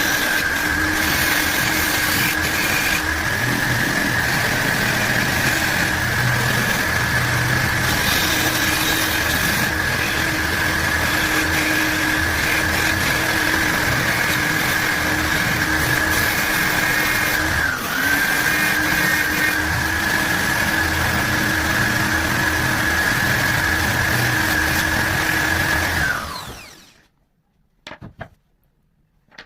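Handheld electric cutter machine running with a steady high whine, dipping briefly about eighteen seconds in. Near the end it is switched off and winds down, its pitch falling, leaving near silence.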